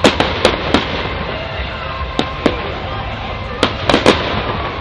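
Fireworks bursting: a string of about ten sharp bangs in irregular clusters, with the loudest right at the start.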